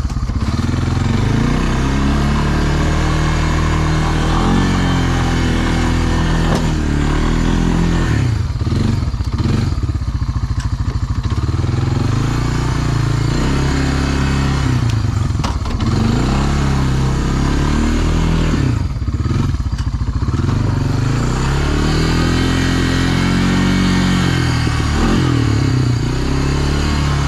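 1999 Honda FourTrax 300 ATV's single-cylinder four-stroke engine running as it is driven, its pitch rising and falling again and again as the throttle is opened and closed.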